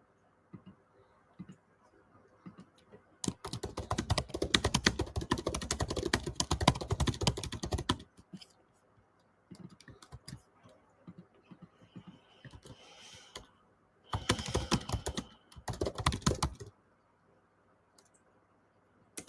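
Typing on a computer keyboard: a long run of rapid keystrokes, scattered single keys, then a second shorter burst of fast typing near the end.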